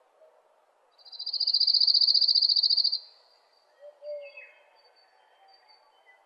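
A loud, high, very rapid animal trill that lasts about two seconds, starting about a second in. A few faint bird calls follow, among them a falling whistle, over quiet outdoor background.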